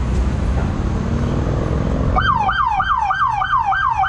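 Traffic noise, then about two seconds in a police car siren starts a fast yelp: a tone that drops sharply in pitch, over and over, about three times a second.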